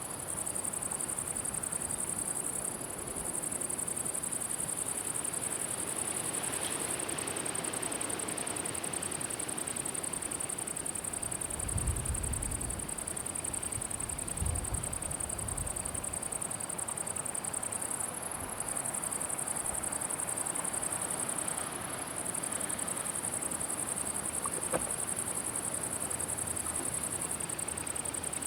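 Insects stridulating: a continuous high-pitched chirring that drops out briefly a few times, with two short low rumbles near the middle and a faint click near the end.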